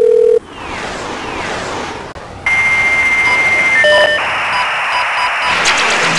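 Dial-up fax modem connecting over a phone line. A steady tone cuts off about half a second in, followed by hiss. About two and a half seconds in, a high steady answer tone starts, switches to other tones near the four-second mark, then becomes the dense, screechy hiss of the modem handshake.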